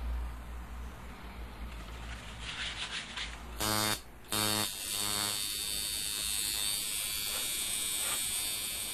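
Electric tattoo machine buzzing: two short bursts a little under four seconds in as it is switched on and off, then running steadily as the needles go into the skin.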